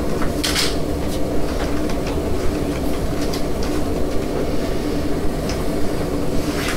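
A steady low rumble with a faint hum, broken by scattered light clicks, one sharper click about half a second in.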